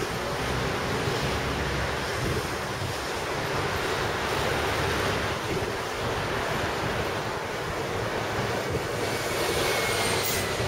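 Steady rushing of wind on the camera's microphone, an even roar with no let-up, and a couple of short clicks near the end.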